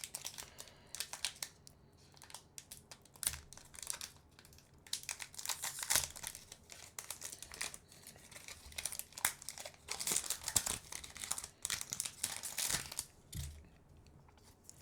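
Trading-card booster pack wrapper crinkling and tearing as it is opened by hand, in irregular bursts of crackle with short pauses and a few soft bumps.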